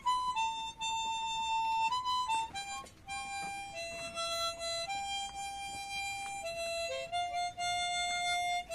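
Harmonica playing a slow melody, one note at a time, each held for about half a second to a second.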